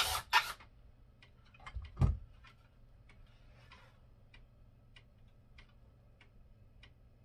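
A cordless drill runs briefly at the start, and a single thump follows about two seconds in. After that a clock ticks steadily, about one tick every two-thirds of a second.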